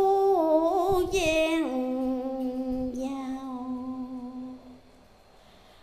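A woman's voice chanting Vietnamese verse in the drawn-out ngâm style of Hòa Hảo scripture recitation. It moves through a few sliding notes, then holds one long note that fades out about five seconds in.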